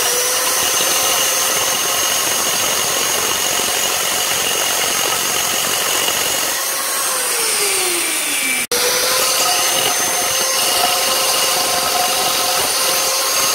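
Old electric drill with a 6 mm glass bit running at steady speed as it widens a small hole in a glazed ceramic cistern lid. About seven seconds in the motor slows and winds down, and after a brief break it runs steadily again.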